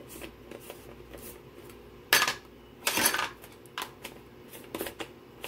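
A utensil clinking and scraping against a stainless steel cooking pot: a few sharp clanks, the loudest about two and three seconds in, with lighter knocks after.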